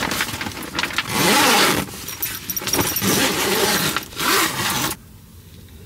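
Tent zipper pulled in several rasping strokes of about a second each, with tent fabric rustling, stopping about five seconds in.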